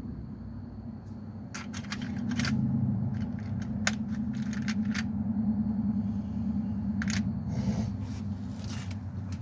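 Metal hand tools clinking and knocking together, several sharp clinks in the first few seconds and again later, over a steady low hum.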